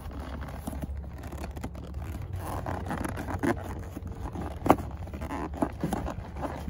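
Leather stirrup leather being forced through a saddle under its sheepskin fleece lining: leather and fleece rubbing and scraping irregularly, with scattered small clicks and one sharper knock about two-thirds of the way through.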